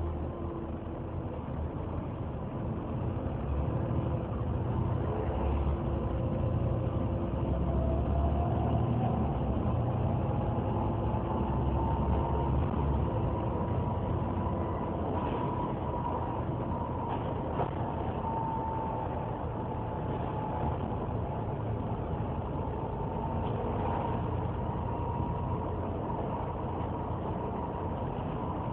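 Engine cooling fan of a Volvo B7TL bus 'hoovering': a steady vacuum-cleaner-like rush of air with a whine that climbs slowly over the first fifteen seconds or so and then holds, over the deep rumble of the bus's engine running.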